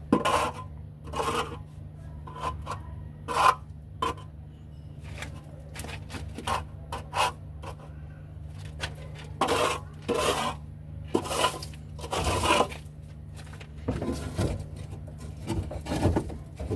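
Irregular scraping and rubbing strokes of dirt and rubbish being cleared from a pigeon loft floor, some short and some lasting about half a second. A steady low hum runs underneath.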